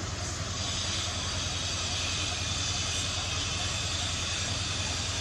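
Steady background hiss with a low, even hum underneath; no distinct calls or knocks stand out.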